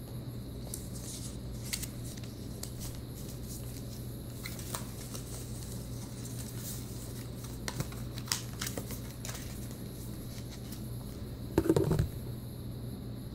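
Card-stock and paper packaging being handled: scattered light rustles and taps as a documentation packet is lifted out of a laptop box, with a louder dull knock near the end.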